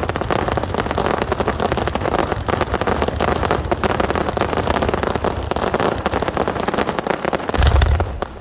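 Fireworks barrage: a dense, continuous rattle of rapid firecracker reports, with a heavy low boom near the end, then the sound cuts off suddenly.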